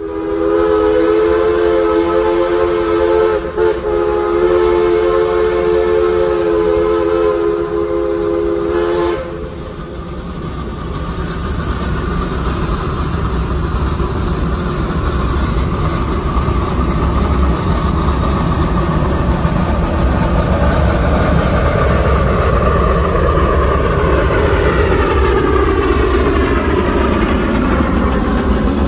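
Heisler geared steam locomotive's steam whistle blowing two blasts, a short one and then a longer one, cut off about nine seconds in. After that the locomotive works hard under a freight train, its running noise growing louder as it draws near.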